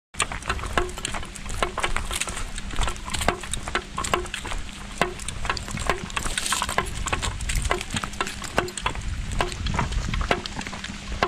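Walking on a leaf-strewn asphalt path: footsteps about two a second with quicker clicks and crunches from a dog's claws and dry leaves underfoot, over a low rumble. A brief hiss about halfway through as the dog sniffs the ground.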